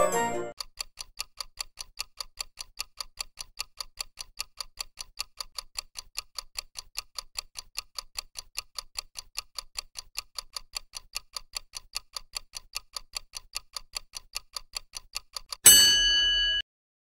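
Countdown-timer clock-tick sound effect: fast, even ticking for about fifteen seconds as the timer runs down. When it reaches zero, a loud bell-like ding rings for about a second and cuts off. The tail of an organ-like intro tune fades out just before the ticking starts.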